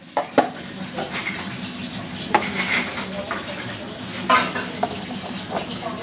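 Scattered light clicks and clinks of small hard objects being handled, irregularly spaced, over a faint low steady hum.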